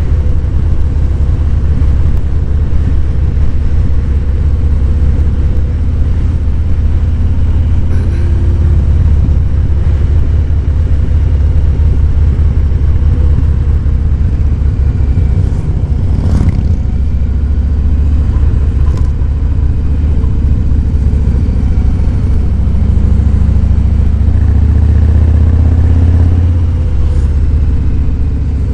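Harley-Davidson Fat Boy 107's Milwaukee-Eight V-twin engine running under way, a steady deep rumble. It grows louder for a few seconds near the end, then eases back. A single short sharp click comes about halfway through.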